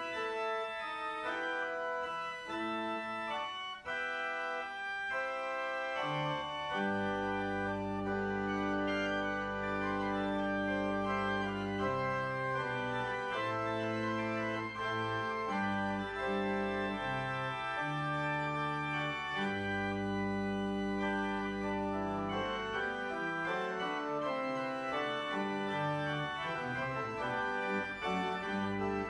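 Church organ playing music of held chords, with deep pedal bass notes coming in about six seconds in and sounding under most of the rest.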